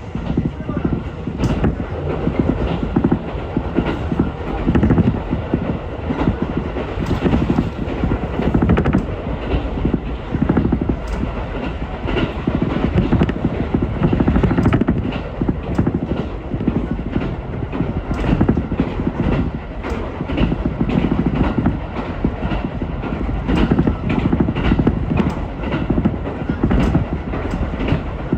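Ichibata Electric Railway electric train running between stations, heard from inside the car: a steady low rumble of wheels on rail with frequent clicks and knocks from the track.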